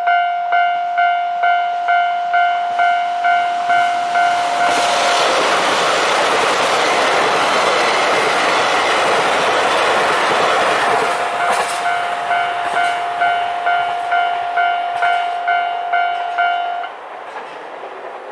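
Level-crossing warning bell ringing about twice a second. About four seconds in, a JR Hokkaido KiHa 261 series diesel express train passes, its rush and wheel noise covering the bell for about six seconds. The bell comes back and then stops near the end.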